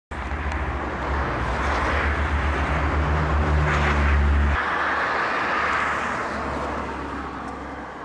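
Car driving along a road: steady road and engine noise with a deep rumble that drops away about halfway through, the whole sound fading slightly near the end.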